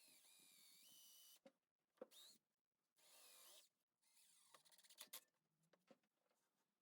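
Power drill motor whining in short bursts, the pitch stepping up as it speeds up, with a few sharp clicks between runs.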